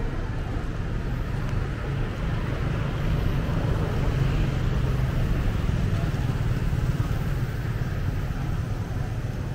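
Steady low rumble of road traffic, swelling a little in the middle.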